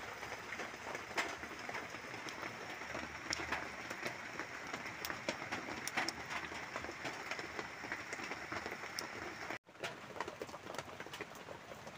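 Steady patter of light rain with the sharp, irregular crackle of a small wood fire, as water boils in a hanging tin can over it. The sound cuts out for an instant near the end.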